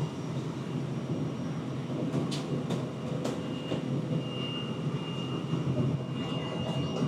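Steady low drone of the ship's engine heard from on board, with a few sharp clicks or knocks between about two and three and a half seconds in.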